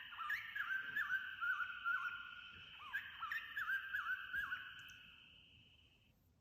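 A recorded jungle birdsong chorus played back from a children's sound book: repeated short whistled warbles over a steady higher tone, fading out about five seconds in.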